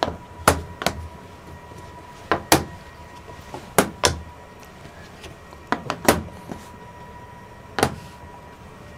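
Wooden shogi pieces clacking as they are placed on and pulled off a large wall demonstration board: about nine sharp clacks, singly and in quick pairs.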